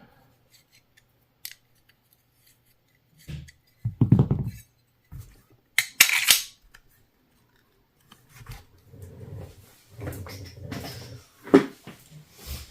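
Metal handguard being worked onto an airgun carbine's barrel adapter while it catches on a groove: irregular clinks, knocks and scrapes of metal parts. There is a louder knock about four seconds in and a short sharp scrape about six seconds in.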